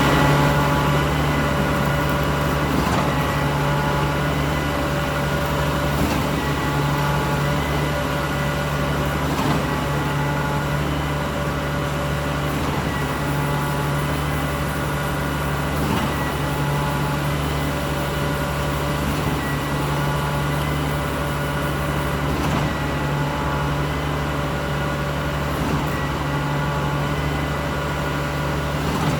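A large engine running steadily at a constant speed, with a few faint knocks.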